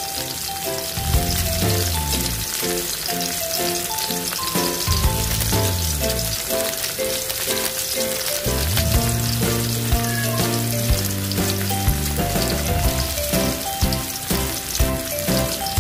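Garlic, onion and tomato with dried shrimp sizzling as they are sautéed in a pan. Background music with a melody and bass line plays over it.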